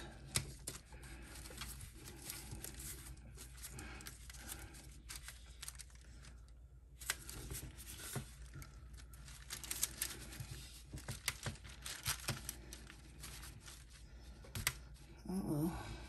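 Silicone mold being peeled back off a freshly cured epoxy resin casting: a quiet, irregular run of small crackles and tearing snaps as the mold lets go of the resin.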